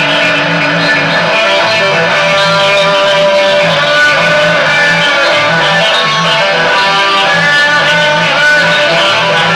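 Live rock band playing: electric guitar carrying a sustained melodic line over a steady, evenly pulsing low rhythm, loud throughout.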